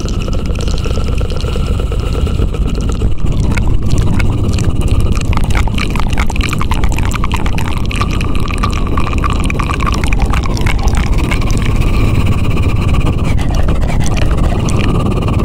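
Close-miked ASMR 'helicopter' trigger sound: a steady, loud rush of rapid clicking and rubbing over a low rumble.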